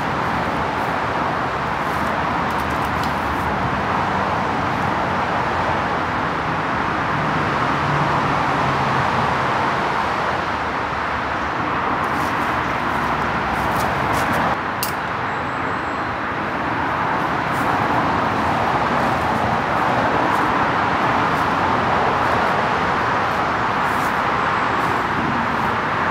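Steady, continuous noise of M27 motorway traffic, a close, unbroken rush of tyres and engines. One sharp click about halfway through.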